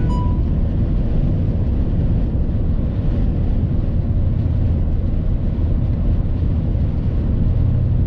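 Steady road noise heard from inside a moving car's cabin: tyres on a snow-covered highway over a low engine drone. Right at the start there is a short beep from the Garmin dash cam answering the voice command to take a picture.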